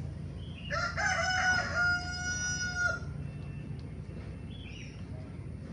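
A rooster crowing once: a rising start, then a long held note that stops about three seconds in, over a steady low rumble.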